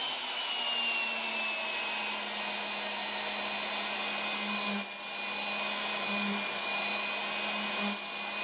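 Techno CNC router spindle running at speed just after start-up, turning an 1/8-inch flat-end mill: a high, steady whine with a hiss and a low hum underneath. The whine eases down slightly over the first couple of seconds, then holds.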